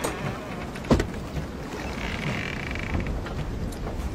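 Steady hiss of wind and sea ambience, with one sharp knock about a second in.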